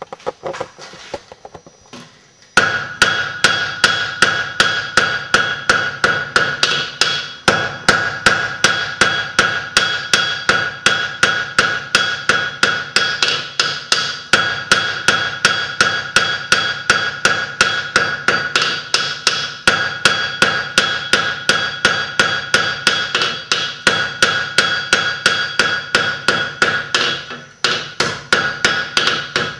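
Hand hammer striking a hot iron needle bodkin arrowhead on an anvil in fast, steady blows, about three or four a second, each with a ringing tone from the anvil. This is the forging of the square point into a diamond section. The hammering starts about two and a half seconds in and pauses briefly near the end.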